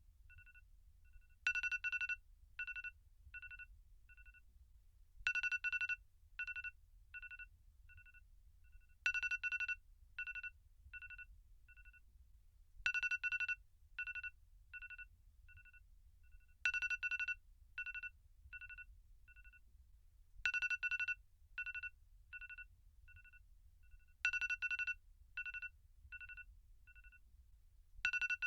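iPhone alarm tone repeating: about every four seconds a loud cluster of quick electronic beeps, followed by a run of shorter beeps that fade away.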